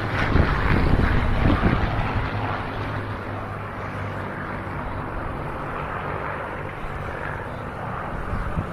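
Piston-engined propeller aircraft droning in flight, louder for the first couple of seconds and then steadier and a little quieter, with wind gusting on the microphone at the start.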